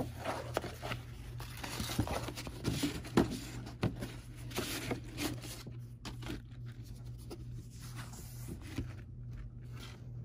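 Paper rustling and crinkling as stacked papers and cards are lifted and leafed through. There are frequent crackles for the first several seconds, then sparser handling sounds.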